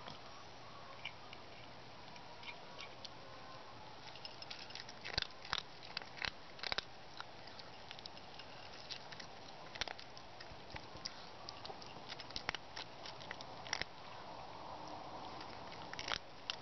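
A small cat eating, with irregular clicks of chewing and biting at its food, coming thickest from about four seconds in.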